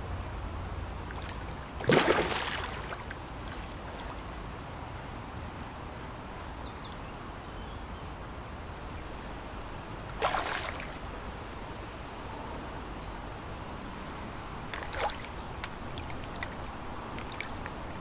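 Water splashing at the surface of a lake while a hooked carp is played: a loud splash about two seconds in, another about ten seconds in, and a smaller one near fifteen seconds, over a steady low rumble.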